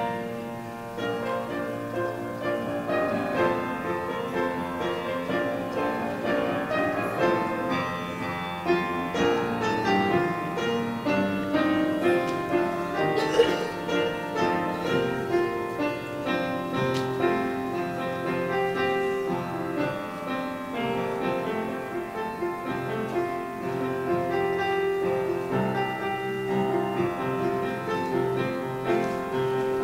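Piano playing a slow, gentle instrumental piece, with one sharp click about halfway through.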